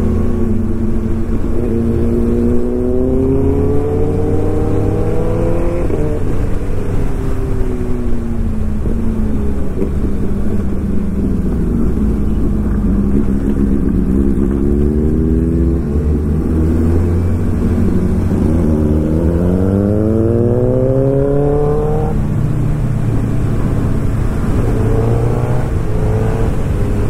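Suzuki Hayabusa inline-four engine under way, its pitch climbing and falling several times as the throttle opens and closes through the gears. There is a steep climb that breaks off suddenly about three quarters through, an upshift.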